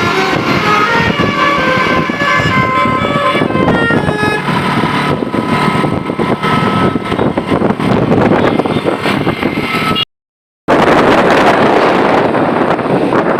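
Bus telolet horn playing a fast melody of short stepped notes for the first several seconds, over vehicle noise. The melody gives way to a rough steady noise, broken by a brief silent dropout near the end.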